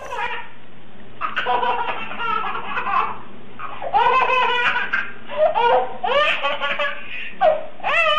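A baby laughing in about six high-pitched bouts, with short breaks between them.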